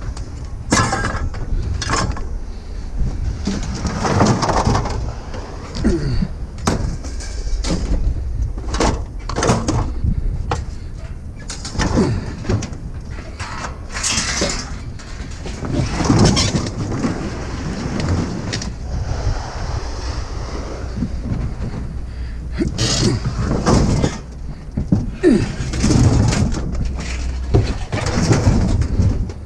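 Scrap metal pieces being handled and tossed off a trailer onto a scrap pile: a series of metal clanks and clatters at irregular intervals, with a steady low rumble underneath.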